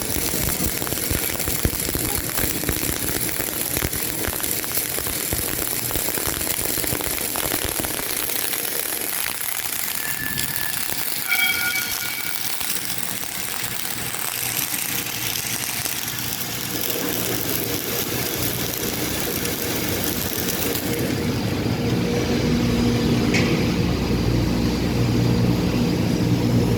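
Steady machinery noise of a metal fabrication shop: a constant hiss over a hum, with a few short beeps about halfway through. A low rumble grows louder near the end.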